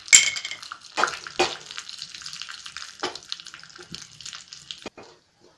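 Mustard seeds crackling and spluttering in hot oil in a small pan for a tadka (tempering), with a loud burst of sizzling just after the start as more goes in. A few knocks of a steel spoon against the pan come through the crackle as it is stirred, and the sizzling cuts off suddenly about five seconds in.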